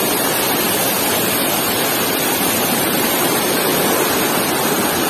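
Waterfall: falling water making a loud, steady rush of noise.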